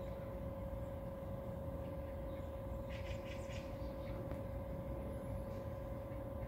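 Steady low rumble with a constant mid-pitched mechanical hum, and a few faint brief high chirps about three seconds in.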